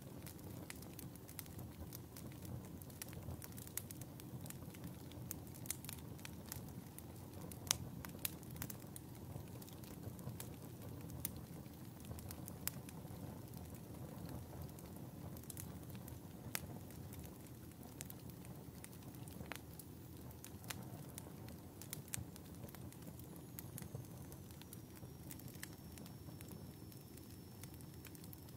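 Wood fire burning in a fireplace: a steady low rumble of flames with frequent irregular sharp crackles and pops of burning logs. A faint thin high whistle comes in over the last few seconds.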